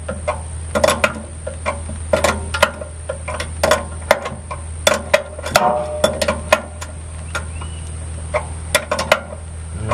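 Hand wrench working a bolt on a chipper shredder's frame: irregular sharp metallic clicks, one to three a second, as the wrench is swung and reset on the bolt while it is tightened down by hand.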